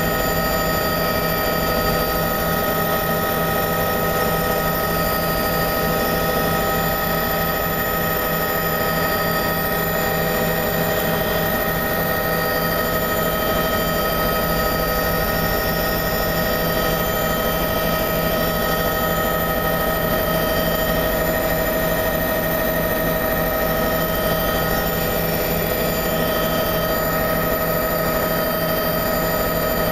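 Steady engine and rotor drone of a tour helicopter, heard from inside the cabin, with a constant hum of several fixed tones that does not change.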